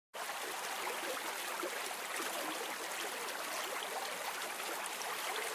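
Ambience of steady rain and running water: an even hiss with a fine patter of drops. It starts abruptly at the very beginning.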